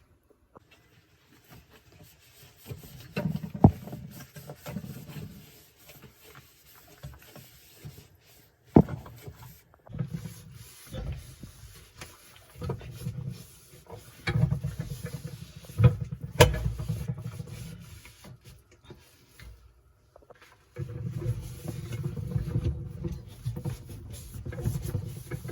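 Scrubbing and wiping inside a dishwasher: irregular rubbing and handling noises with a few sharp knocks against the tub or door.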